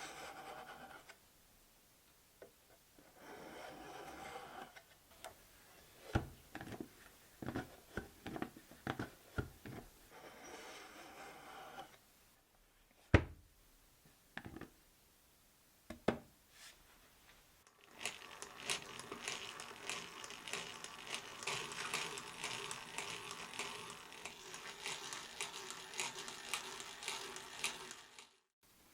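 Hand work on a wooden box: short passages of rubbing, a scatter of light wooden clicks and knocks, then a long stretch of fast continuous rubbing over the wood for the last ten seconds.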